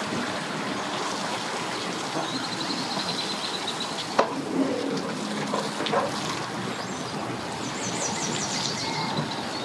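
Steady outdoor background noise with small birds chirping in quick runs twice, and a couple of sharp clicks in between.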